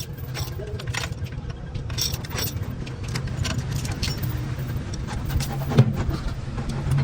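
Metal parts and tools clinking and tapping during truck axle fitting, over a steady low mechanical hum, with one sharper knock near the end.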